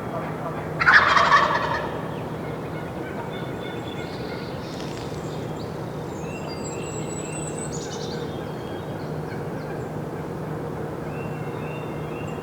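Wild turkey gobbler gobbling once, a loud rapid rattling gobble about a second in. Faint songbird chirps follow later.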